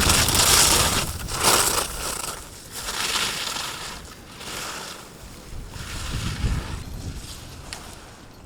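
Slalom skis carving turns on hard-packed snow: a run of scraping swooshes about a second apart, loudest at the start and fading as the skier moves away down the course.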